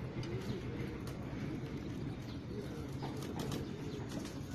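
A straight razor scraping across a man's scalp in short, quick strokes during a head shave, more often near the end, with birds calling in the background.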